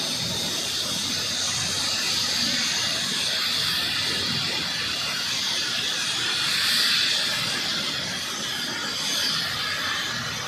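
Airbus H135 helicopter running on the ground: a steady high turbine hiss over a low rumble, swelling slightly about seven seconds in.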